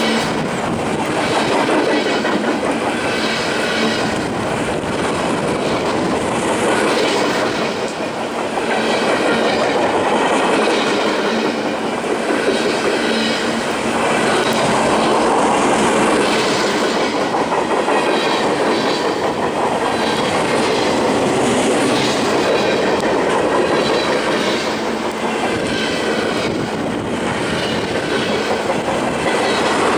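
Heavily loaded freight flatcars rolling past at speed: a loud, steady rush and clatter of steel wheels on the rails, swelling and easing slightly as the cars go by.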